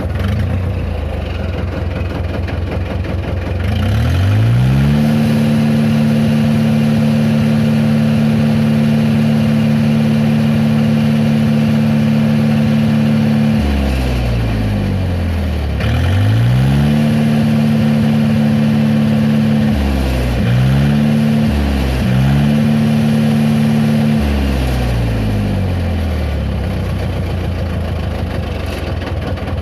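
Tractor engine running at idle, then revved up and held at high speed for several seconds. It drops back, revs again with two quick blips, and settles to idle near the end.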